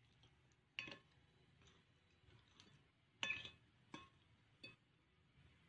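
Metal fork and spoon clinking against a plate while noodles are gathered, four short ringing clinks with the loudest about three seconds in.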